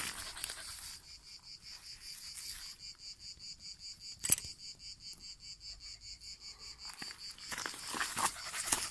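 An insect chirping in a steady, high-pitched run of rapid, even pulses. A single sharp click comes about four seconds in, and dry grass rustles near the end as the dog moves through it.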